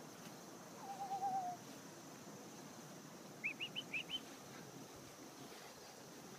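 Two short whistled calls: a wavering tone lasting under a second, then about two seconds later five quick rising chirps.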